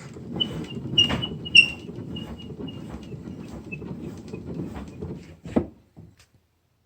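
Hand-cranked gears and router carriage of a homemade milling machine, a low uneven rattle and scrape with faint repeated squeaks, ending in a sharp click about five and a half seconds in before the sound cuts off.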